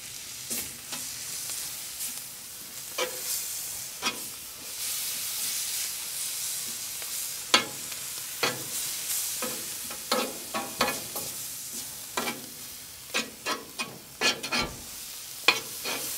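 Sauerkraut, onions and barbecue sauce sizzling on a hot cast-iron griddle plate as a metal spoon stirs them. The spoon makes sharp scrapes and clinks against the plate, coming thicker in the second half.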